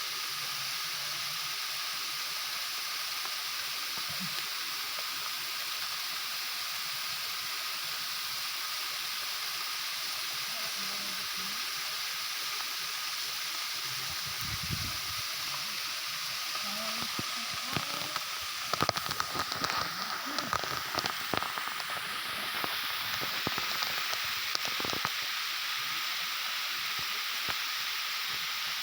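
Waterfall rushing: a steady hiss of falling water. About two-thirds of the way in comes a run of sharp clicks and knocks.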